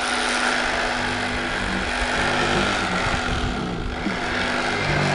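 Corded electric fillet knife running with a steady motor buzz as it cuts a catfish fillet.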